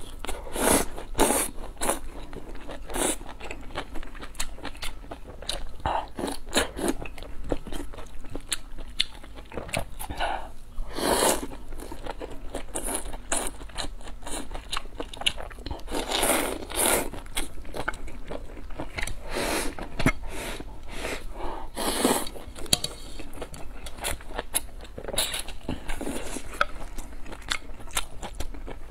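Close-miked eating sounds: noodles slurped and chewed, with many short wet mouth clicks and a few longer slurps.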